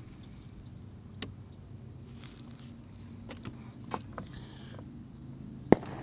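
Handling noise from a small action camera being turned on its mount: scattered light clicks and a sharp knock near the end, over a steady low hum.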